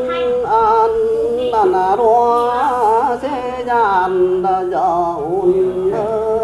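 A single voice singing a Mường folk song (hát tiếng Mường), drawing out long, wavering vowel notes with ornamented turns and no clear words.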